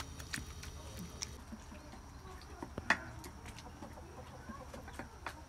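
Metal hand masher knocking and scraping in a glass bowl as soft roasted eggplant is mashed, with scattered clinks. The sharpest clinks come at the start and about three seconds in.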